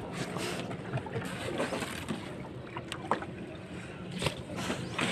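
Paddle strokes and water splashing and lapping against the hull of a small paddled boat, with a few short knocks about three and four seconds in.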